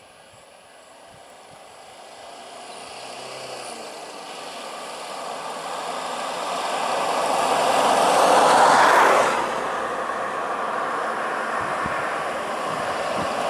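A road vehicle approaching, growing steadily louder, then passing close by about nine seconds in. Its noise drops sharply as it goes past and runs on at a lower level.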